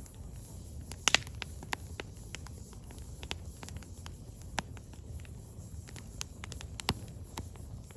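Burning firewood crackling, with irregular sharp pops; the loudest come as a cluster about a second in and a single one near the end, over a low steady rumble.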